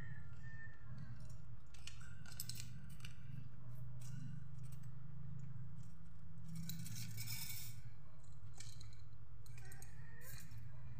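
Metal engine parts clinking and knocking as a motorcycle cylinder head is fitted onto the cylinder by hand: scattered sharp clinks, with a short metallic rattle about two-thirds of the way through. A steady low hum runs underneath.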